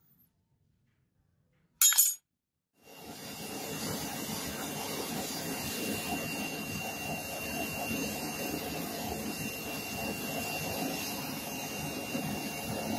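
A short loud clink about two seconds in, then a small homemade forge starts up about three seconds in: its fire is fanned with a steady rushing noise and a thin, steady high whine.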